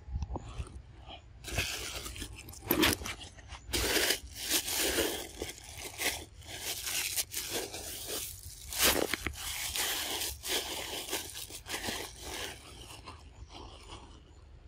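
Close scraping and crunching handling noises in irregular bursts, loudest through the middle and fading near the end.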